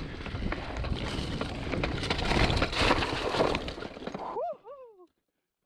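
Mountain bike rolling fast over dirt singletrack strewn with dry leaves: tyre crunch with the bike's chain and frame clattering over roots and rocks. It cuts off suddenly about four and a half seconds in, followed by two short rising-and-falling whoops.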